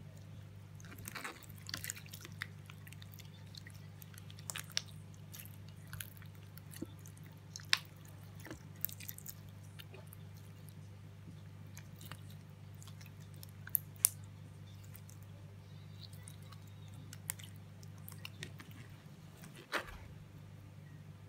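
Clear slime being squeezed and kneaded by hand, giving irregular wet clicks, squelches and pops. A steady low hum runs underneath.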